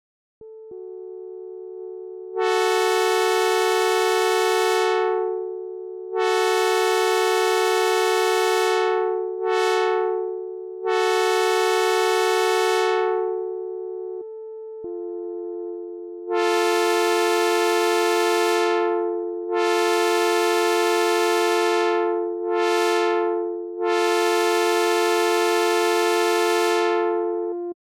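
Synthesizer playing a multi-note train horn chord, imitating a Southern California commuter train's horn. It is sounded twice in the grade-crossing pattern of long, long, short, long. A softer steady tone holds underneath between the blasts.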